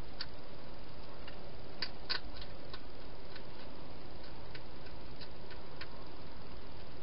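Wild hedgehog eating from a dish inside a plastic feeding box: irregular small clicks and crunches, with a cluster about two seconds in, over a steady hiss.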